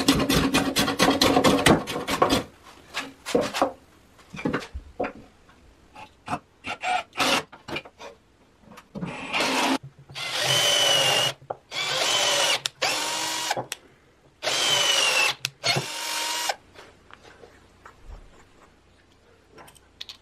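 The softwood bandsaw frame being planed flat with quick strokes for the first couple of seconds. Then come a few handling knocks. After that, a cordless drill bores into a small wooden block in about six short bursts, its motor whining and sagging in pitch as the bit bites.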